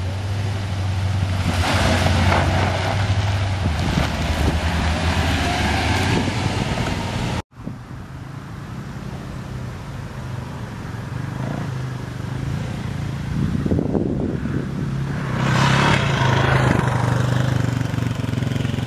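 Jeep Liberty engines running steadily at low speed as the SUVs crawl over dirt and sand trails, with two stretches of rushing noise over the engine. The sound cuts out for an instant about seven and a half seconds in.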